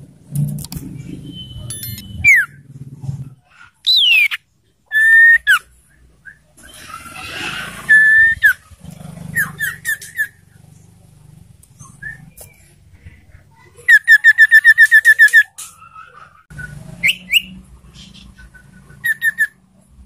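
Caged iora singing: separate clear whistled notes and sharp downward slurs, with a loud, fast, even trill of about ten notes a little past the middle. This is an iora whose song is filled with learned yellow-vented bulbul (trucukan) phrases.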